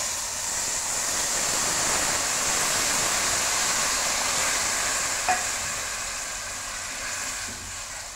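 Water poured into a pot of hot ghee-roasted semolina for halwa, hissing and sizzling loudly as it hits the fat, the sizzle slowly dying down; a light knock about five seconds in.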